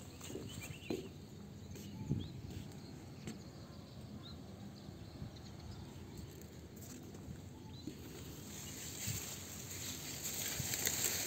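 Footsteps and brushing through leafy undergrowth, a soft rustle of leaves and stems against the body, growing louder near the end as a hand pushes the leaves apart.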